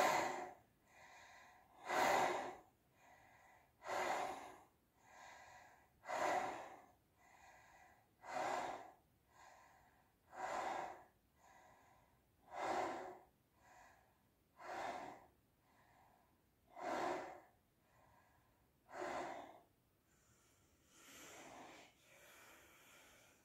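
Lion's breath (simhasana): loud, noisy exhalations through the open mouth with the tongue stuck out, about one every two seconds, ten in all, with quieter inhalations between them. Near the end the breathing softens into one slower, quieter breath.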